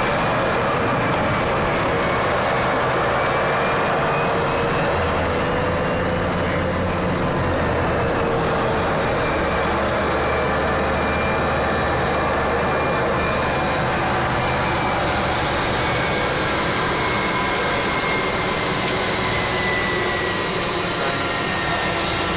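Single-engine propeller plane's engine and propeller running steadily, heard from inside the cockpit while the plane rolls on the airstrip after landing, with a high whine over the engine.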